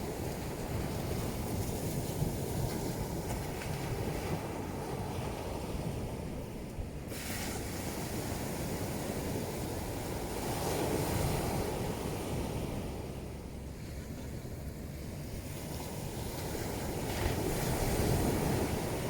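Ocean surf breaking and washing on the shore in a continuous rush, swelling with incoming waves about halfway through and again near the end.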